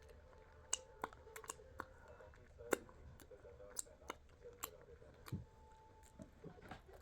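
A person chewing and biting food close to the microphone, with irregular sharp clicks and crunches.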